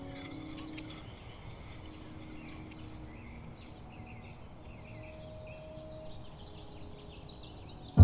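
Small birds chirping, many short quick calls over a faint steady background hiss. A held low ringing tone fades out in the first second.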